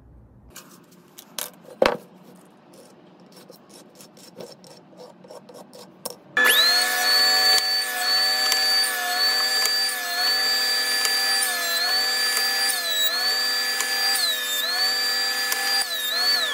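A few light clicks and a sharp knock from the wooden block being handled. About six seconds in, a benchtop jointer starts up and runs with a loud whine, face-jointing a walnut block; its pitch dips briefly several times as the wood is fed over the cutterhead.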